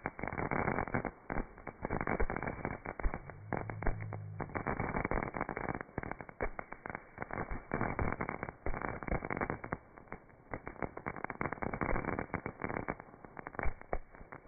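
Consumer ground fireworks firing, with a dense run of irregular crackles and pops that sound dull and muffled.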